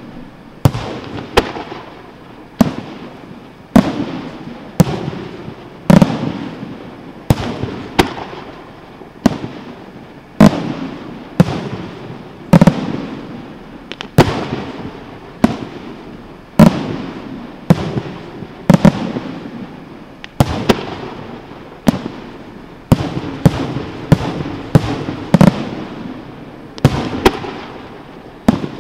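Aerial firework shells bursting in a rapid sequence, a sharp bang about every half second to a second, each trailing off in a rumbling echo.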